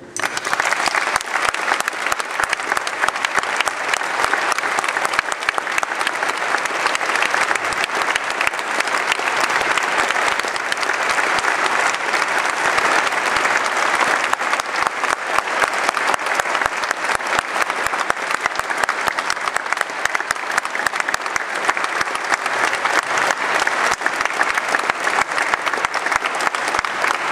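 Audience applauding: a dense, steady clapping that breaks out suddenly and keeps going throughout.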